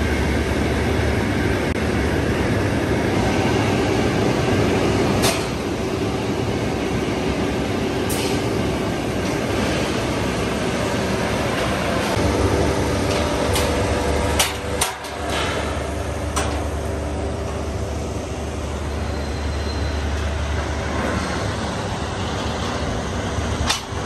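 Steady steel rolling mill machinery noise with a low hum, broken by a few sharp metallic clanks of steel rebar being handled.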